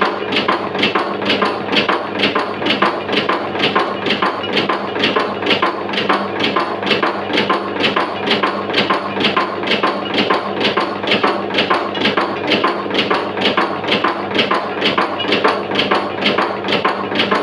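Camphor tablet-making press running, its punch knocking in a steady even rhythm of about two to three strokes a second as it stamps out camphor tablets, over a steady hum.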